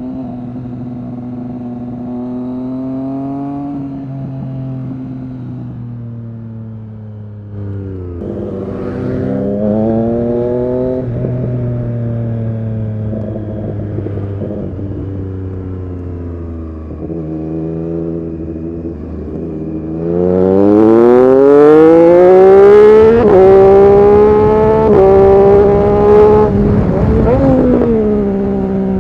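Triumph Street Triple RS 765's inline three-cylinder engine through an SC-Project S1 exhaust, pulling up through the gears while riding. The pitch rises and drops back at each upshift, and a hard, loud acceleration comes about two-thirds of the way in before the revs fall away near the end.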